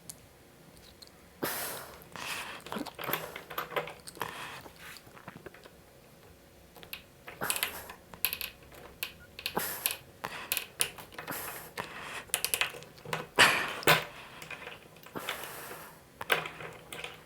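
Irregular small clicks and scrapes of a metal spade connector being handled and screwed onto a speaker cable by hand, with one sharper knock late on.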